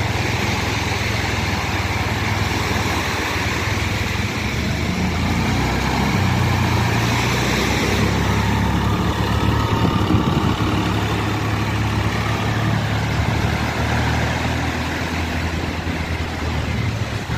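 Diesel farm tractor engine running as the tractor drives along the sand, a little louder as it passes close about halfway through. Waves wash on the shore behind it.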